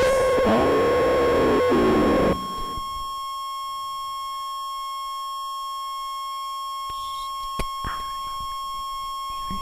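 Electronic music from a mixing desk and pitch-shifter pedal setup: a dense, gliding pitched texture cuts off suddenly about two seconds in, leaving a steady sine-like tone with faint higher tones, and a single sharp click about three-quarters of the way through.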